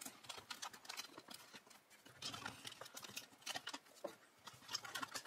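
Quiet, irregular clicks and short scrapes of cardboard packaging and plastic as small flocked toy figures are pulled free of their box insert.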